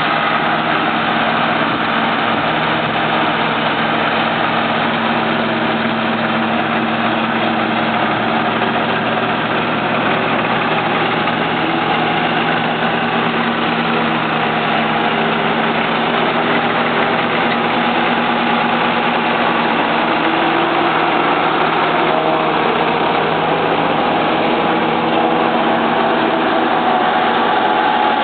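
Multi-row maize silage harvester running steadily, engine and machinery giving a dense, even mechanical drone with several steady tones.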